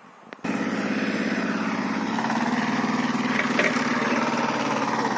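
Mahindra Jivo 225 DI mini tractor's diesel engine running hard under load as it drags a heavily loaded sugarcane trolley out of soft, wet ground. The engine comes in abruptly about half a second in and climbs slightly in pitch about two seconds in.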